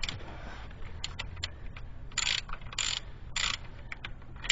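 Ratchet wrench loosening a 15 mm oil drain plug: scattered clicks, then three short runs of rapid ratchet clicking about half a second apart in the middle.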